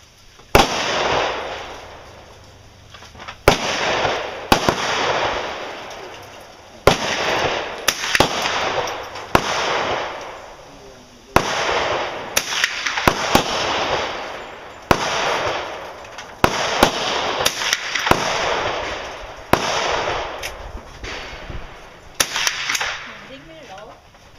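Remington .22 pump-action rifle firing repeatedly, about a dozen sharp cracks one to three seconds apart, each trailing off in a ringing echo, with fainter cracks and clicks between them.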